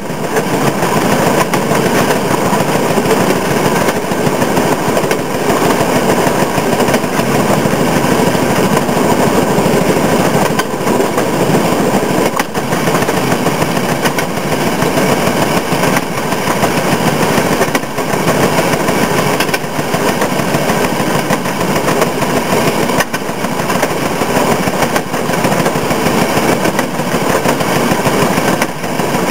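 Railroad motorcar (speeder) engine running steadily at cruising speed, a rapid putt-putt of exhaust firing.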